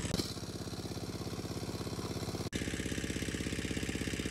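Small engine of a water pump, pumping water out of the pond, running steadily with an even, fast chugging beat. The sound briefly cuts out just past halfway.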